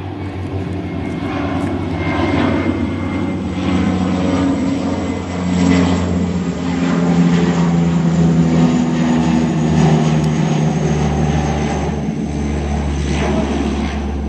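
Canadair water bomber's twin turboprop engines and propellers droning as the plane passes low overhead. The sound swells toward the middle, and its pitch drops slightly as it moves away.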